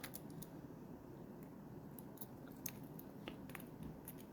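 Faint scattered clicks and taps of a hard plastic fishing lure being handled, with uncovered treble hooks knocking lightly against it.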